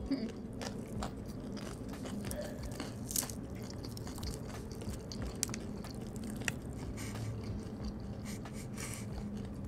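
Close-up eating sounds of crispy fried chicken: scattered crunchy bites and chewing, with fingers pulling the meat apart.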